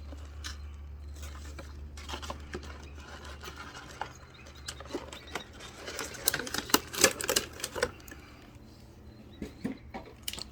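Irregular clicks and rustles of plastic packaging and parts being handled, loudest and busiest about six to eight seconds in, over a low hum that drops away about four seconds in.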